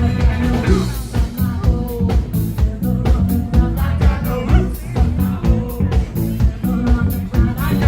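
Live rock band playing, with a steady drum-kit beat, bass and a singer's melody over the top.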